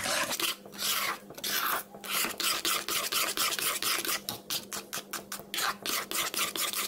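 Spatula scraping and stirring thick atta halwa around a heavy-bottomed kadhai as the sugar is mixed in, in quick repeated rasping strokes, several a second.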